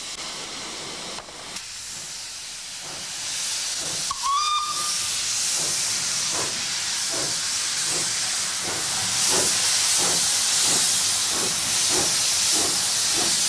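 Lambton, Hetton and Joicey Colliery No. 5, a 1909 Stephenson-built 0-6-2 tank steam locomotive, hissing steam as it sets off. It gives a short toot on its whistle about four seconds in, then its exhaust chuffs begin, slow and even at about one every half-second or so, while the hiss grows louder.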